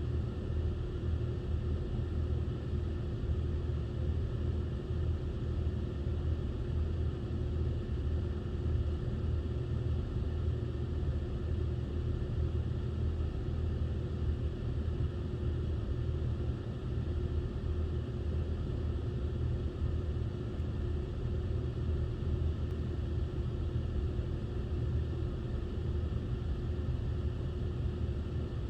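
Steady low rumble of a running vehicle, unchanging, with a faint steady hum above it.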